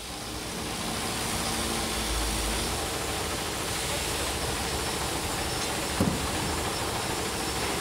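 Steady industrial machinery noise, an even hiss over a low rumble, fading in at the start. A single dull knock comes about six seconds in.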